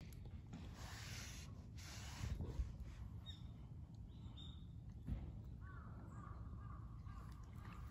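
Faint crow cawing a few times, mostly in the second half, over a low steady outdoor background.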